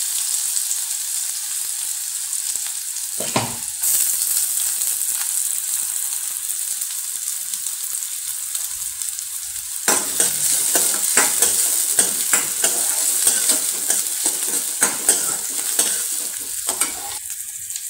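Chopped red onions sizzling in hot oil in a stainless steel kadai, a steady high hiss. About ten seconds in, a spatula starts scraping and knocking against the pan as the onions are stirred.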